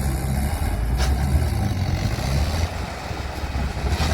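Heavy machine's engine running steadily with a low, deep note, easing off somewhat about two-thirds of the way through, with a couple of sharp clicks.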